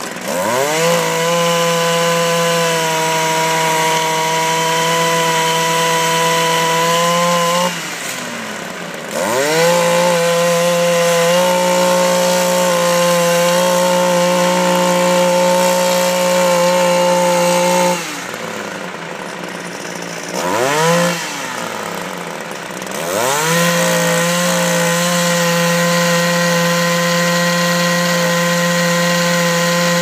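Gas two-stroke pole saw revving up to full throttle three times, each run several seconds long, as it cuts tree limbs. Between the cuts it drops back to a lower idle, with one short blip of the throttle during the second pause.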